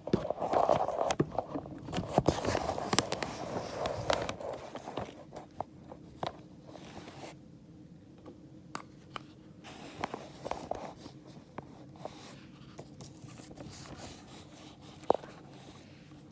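Handling noise on the recording phone's microphone: close rustling, scraping and clicks as it is moved and hidden, loudest in the first four seconds, then fainter scattered clicks and one sharp click near the end.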